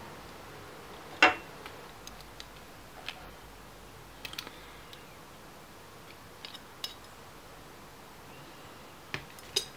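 Clicks and light metal taps of a silver pocket-watch pair case being handled and opened: one sharp click about a second in, scattered lighter clicks after it, and a few more clicks near the end.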